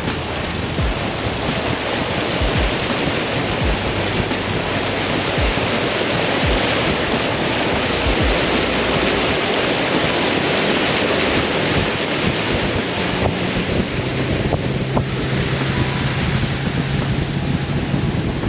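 Small aluminum boat under way across choppy water: a steady rush of wind buffeting the microphone, mixed with water splashing and hissing off the hull.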